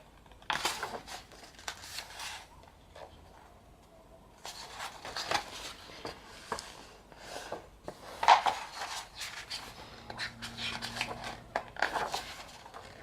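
Paper and cardboard handling: the album's booklets, pages and inserts being turned, rustled and shuffled, in irregular short scrapes and taps with one sharper knock about eight seconds in.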